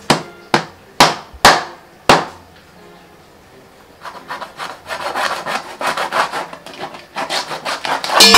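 A heavy fish-cutting knife chopping into a whole fish on a wooden board: five sharp blows in the first two seconds. After a pause, from about halfway, the blade is worked back and forth through the fish in quick rasping sawing strokes.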